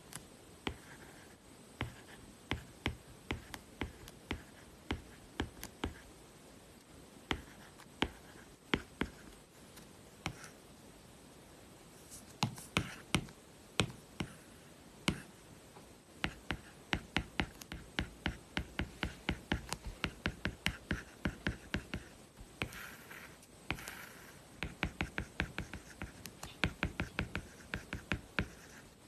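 Stylus nib on an iPad's magnetic paper-like matte screen protector while handwriting: a run of sharp little taps, with short scratchy pen strokes between them, the taps coming faster in the second half.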